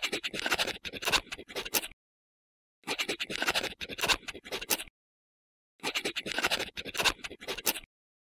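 Scribbling sound effect of a pencil writing on paper, in three bursts of about two seconds each with a second of silence between them.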